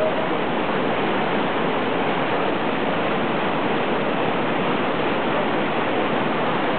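Fast mountain river rushing through white-water rapids over stones: a steady, unbroken rush of water.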